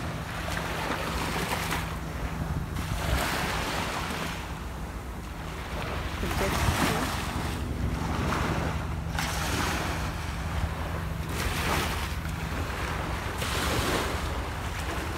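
Small waves washing onto the beach in surges every two to three seconds, with wind buffeting the microphone.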